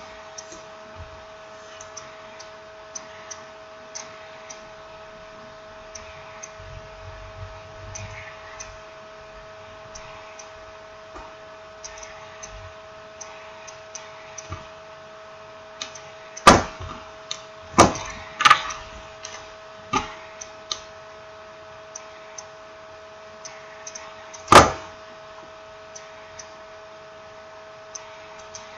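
Faint scattered clicks and several sharp knocks of small tools and smartphone parts handled on a hard work surface, with a cluster of knocks a little past halfway and one loud knock near the end, over a steady electrical hum.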